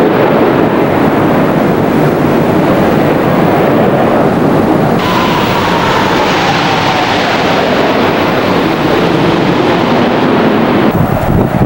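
Jet aircraft passing overhead, a loud, steady engine noise. About halfway through it suddenly becomes brighter and a whine falls steadily in pitch as the jet goes by.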